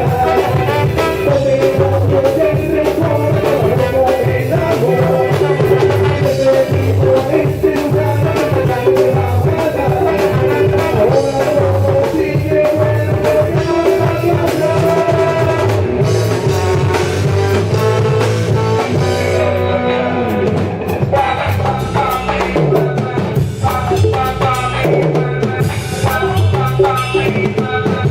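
Instrumental passage of a Latin ska-style band song: drum kit with rimshots over bass, guitar and horns.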